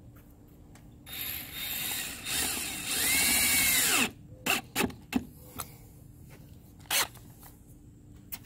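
Cordless drill/driver driving a sharp-point screw (not a self-tapper) through a metal snorkel bracket into the Jeep's windshield pillar. The motor runs in spurts from about a second in, whines up in pitch and back down, and stops abruptly about three seconds later. A few short clicks and taps follow.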